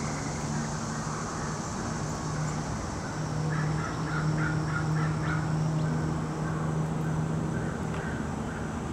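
Fish crow giving a quick run of short nasal calls a few seconds in, with a few more near the end, over a steady low hum.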